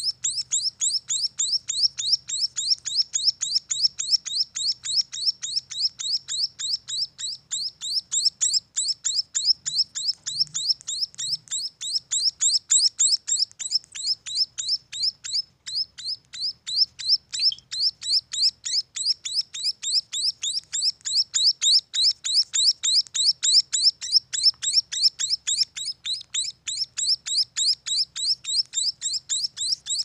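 Young emprit finches chirping: an unbroken, rapid series of short, high chirps, about five a second.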